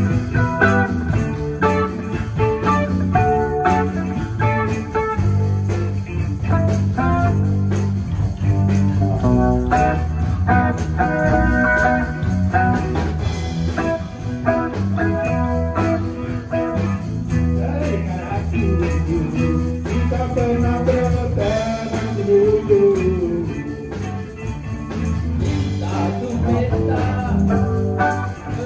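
Electric guitars playing a blues jam over a low, stepping bass line.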